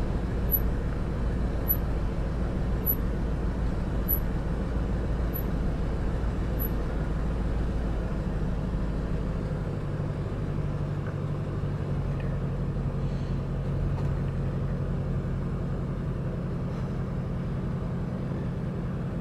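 A motor vehicle's engine idling, a steady low hum whose pitch shifts slightly about ten seconds in.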